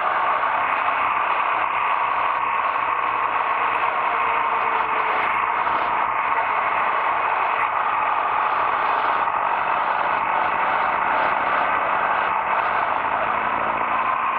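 Steady wind rush and road noise from a moving motorcycle, heard through a bike-mounted action camera, with the motorcycle's engine running faintly underneath at a steady cruise.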